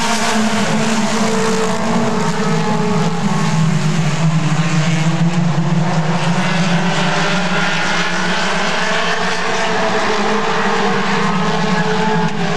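A pack of mini stock race cars running at speed, their four-cylinder engines droning loudly and steadily, with engine pitches slowly rising and falling.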